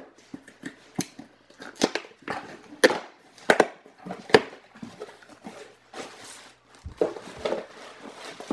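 Shipping box and its packaging being handled and opened by hand: irregular knocks, scrapes and short tearing or rustling sounds.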